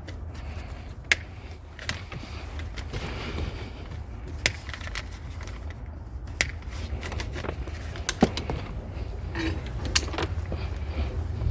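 Scrap being handled by hand: a run of scattered sharp clicks and knocks, about seven in all and irregular, over a steady low rumble.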